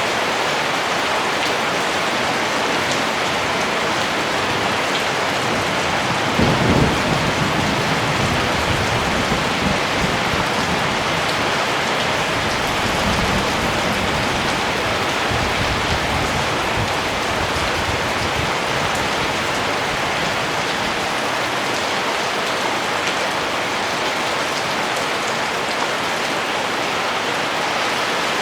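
Steady heavy rain. About six seconds in, a roll of thunder starts suddenly and rumbles away over the next several seconds.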